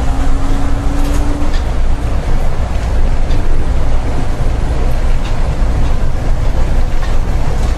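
Seibu 8500 series "Leo Liner" rubber-tyred guideway train running along its concrete track, heard from inside the cab: a steady, loud rumble of tyres and running gear. A faint rising motor whine fades out in the first second or so.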